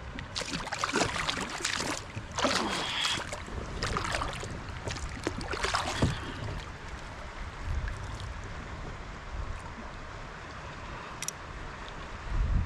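Water splashing and trickling at the side of a kayak in a run of irregular splashes over the first six seconds, then a low steady rumble of wind on the microphone.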